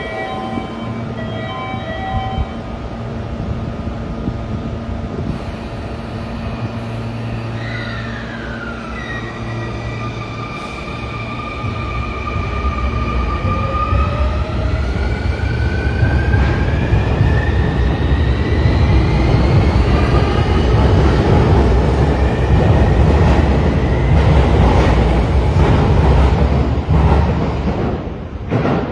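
Subway train running: a steady electric hum at first, then whining tones that glide down and back up in pitch, under a low rumble that grows louder through the second half and falls away suddenly at the end.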